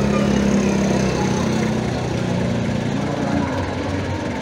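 Engine of an old open-top jeep running steadily at low speed as it drives slowly past. The engine note drops away a little over three seconds in.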